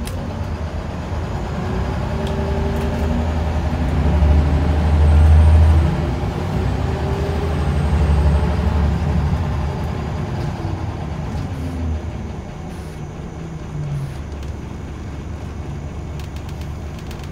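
Scania L94UB bus's rear-mounted diesel engine heard from inside the passenger saloon, running under way. Its pitch rises and falls with the revs; it grows loudest about four to six seconds in and again around eight seconds, then eases off.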